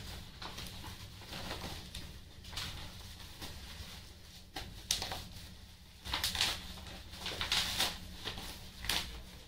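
Plastic bag and packaging crinkling and rustling as a parcel is unwrapped by hand, in irregular bursts that come thicker and louder in the second half.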